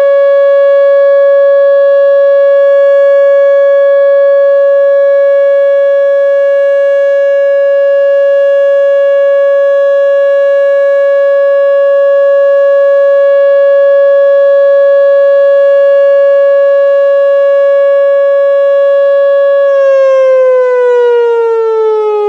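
Whelen WPS-2910 electronic outdoor warning siren sounding its steady Alert tone, one loud unwavering pitch. About twenty seconds in, the tone begins to fall in pitch as the signal winds down.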